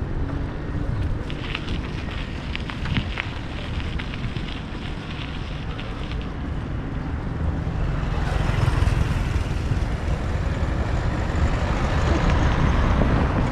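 Wind rumbling and buffeting on the microphone, with light crackling in the first few seconds. From about eight seconds in, a broader noise swells and stays loud, like a road vehicle approaching.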